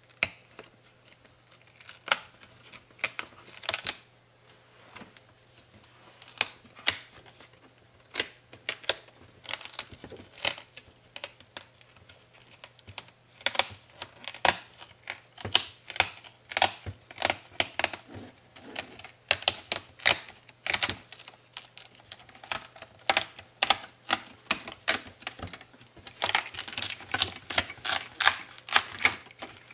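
Plastic snap clips of the MSI GP73 Leopard 8RF's display bezel clicking loose as the bezel is pried off the screen lid: a long run of irregular sharp clicks that come thickest near the end.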